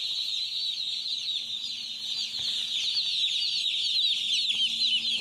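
A large flock of young chicks peeping together, a dense unbroken chorus of many overlapping high chirps, with a faint steady low hum underneath.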